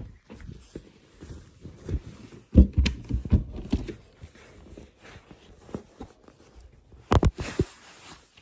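Irregular low thumps and rustling of a handheld phone carried by someone hurrying about: handling noise against clothing, mixed with footfalls. The loudest knocks come about three seconds in and again near the end.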